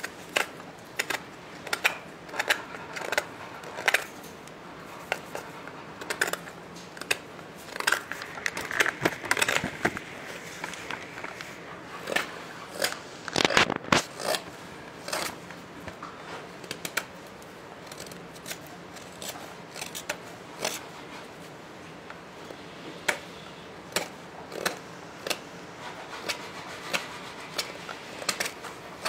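Hand knife carving a wooden spoon: short, crisp slicing cuts into the wood at an uneven pace of one or two a second, with a few longer scraping strokes near the middle.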